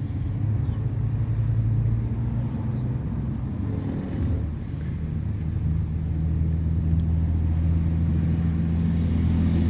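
A motor runs steadily with a low hum. Its pitch shifts slightly about halfway through.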